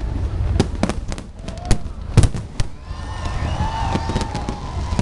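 Fireworks display exploding overhead: a rapid run of sharp bangs over a low rumble. From about halfway through the bangs thin out and high wavering tones come in.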